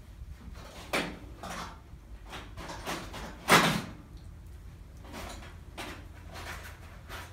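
A series of short rustling, scuffling noises as a Highland bull calf nuzzles and mouths a Great Pyrenees puppy lying in wood shavings. The loudest comes about halfway through, over a steady low hum.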